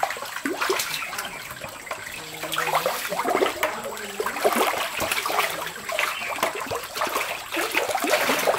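Water splashing and sloshing in a shallow concrete tank as catfish thrash and are grabbed by hand, in many short, irregular splashes.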